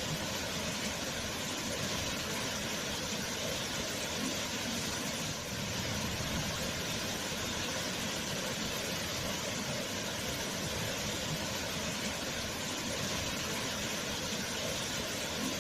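Waterfall, its falling water rushing in a steady, unbroken roar.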